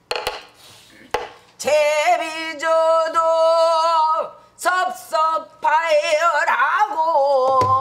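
A woman singing pansori in the slow jinyangjo rhythm, holding long notes with a wide, wavering vibrato in two phrases, with a short break about four seconds in. A few sharp knocks fall between the phrases.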